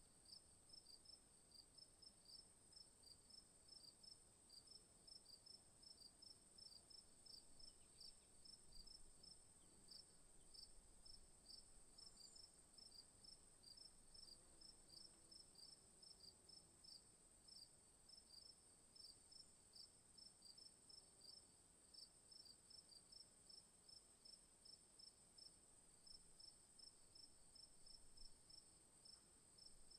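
Faint night insect chorus in the bush: a steady high-pitched insect drone with crickets chirping in an even rhythm, about three chirps a second.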